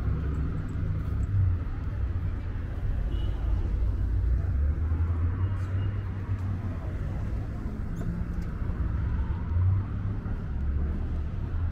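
Steady low rumble of road traffic on a city street, cars running by.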